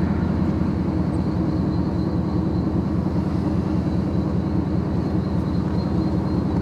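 Pickup truck engine running steadily with an even low drone.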